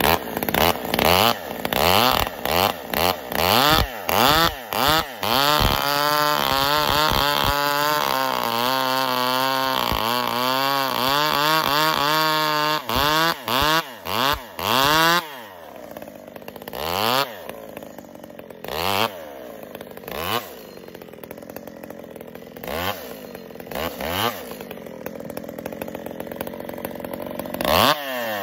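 Husqvarna 266 XP two-stroke chainsaw revved in short blips, then held at high revs for several seconds while cutting through a log. After a few more blips it drops to idle, with occasional blips of the throttle near the end.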